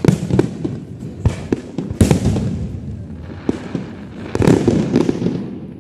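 Fireworks display: aerial shells bursting in a series of sharp bangs, each trailing off in an echo. The loudest bangs come just after the start and about two seconds in, with a thicker cluster of bursts from about four and a half seconds in.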